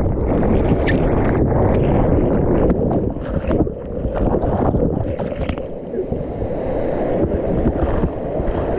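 Rushing whitewater of a rocky mountain-stream rapid, a loud steady wash heavy in the low end, with wind buffeting the microphone and a few short splashes or knocks.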